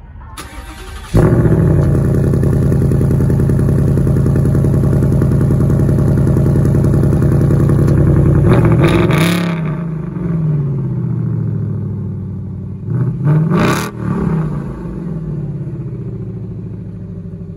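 2023 Ford Mustang GT's 5.0-litre Ti-VCT V8 cold-starting through its quad exhaust: it fires about a second in and settles into a loud, steady fast idle. Two throttle blips follow, one about nine seconds in and a shorter one near fourteen seconds, after which the idle runs lower.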